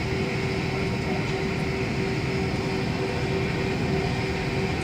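Cabin noise of a McDonnell Douglas MD-88 on the ground, its rear-mounted Pratt & Whitney JT8D engines idling: a steady rumble with a constant mid-pitched hum running through it.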